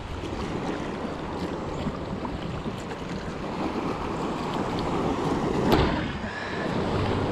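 Surf and wind buffeting the microphone as a kayak comes in to land through the waves, with a louder rush building to a sharp hit about six seconds in.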